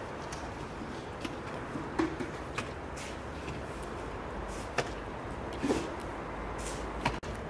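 Irregular light knocks and clicks of food-preparation handling, about one a second, over a steady low background rumble, with a brief dropout near the end.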